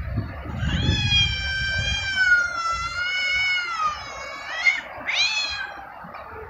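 Cat yowling during mating: one long, wavering yowl lasting about three seconds, then two short rising cries as the mating pair break apart.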